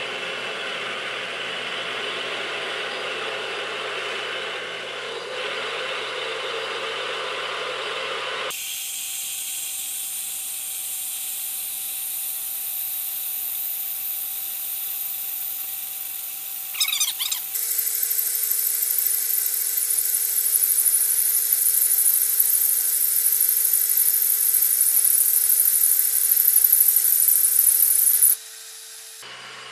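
A large twist drill in a Logan lathe's tailstock cuts into a spinning cast-iron blank, over the steady running of the lathe. About 8 seconds in, the sound changes abruptly to a high hiss with a steady tone. It gets louder after about 17 seconds and cuts off sharply shortly before the end.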